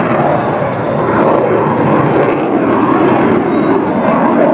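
F/A-18 Hornet jet flying overhead, its engines making a loud, steady jet noise.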